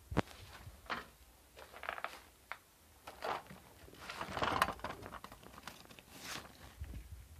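Scattered light knocks, scrapes and crinkling rustles of handling and moving among debris, with a longer stretch of rustling about four seconds in.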